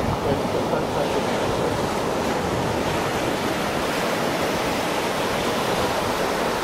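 Steady wash of surf on a sandy beach: an even, unbroken rush of water noise.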